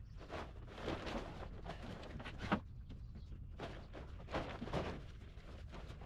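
Stiff sailcloth of a torn foresail rustling and crackling in irregular bursts as it is gathered and folded by hand, with one sharper snap about two and a half seconds in.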